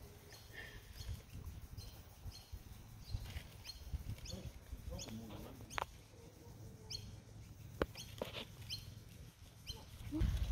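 Birds chirping: short, high, rising notes repeated about twice a second over a low rumble.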